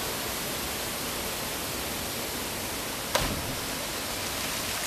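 Steady rush of river water, broken about three seconds in by one sharp splash as a body plunges into a deep pool.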